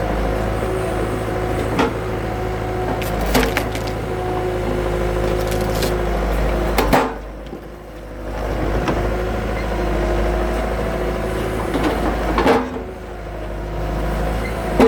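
A skid steer's engine runs steadily while its splitting attachment breaks big firewood rounds, with sharp cracks of wood splitting about five times. After two of the loudest cracks the engine sound drops off briefly, then comes back.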